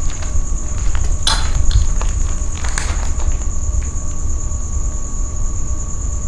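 Night insects, crickets, trilling steadily and high-pitched over a low rumble, with two brief crackles about a second and a half apart, the first about a second in.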